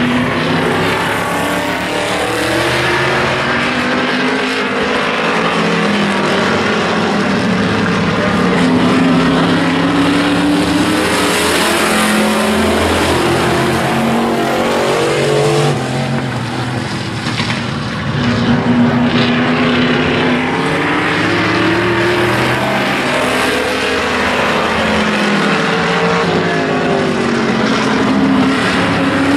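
Pack of street stock race cars' engines running hard around an oval, the pitch rising and falling continuously as the cars accelerate, lift and pass. Loud and steady throughout, with a brief drop in level a little past halfway.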